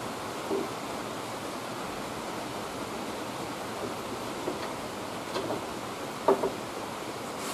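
Steady hiss with a few short clicks and knocks from hands and tools working on a car's fender under the open hood, the loudest pair about six seconds in.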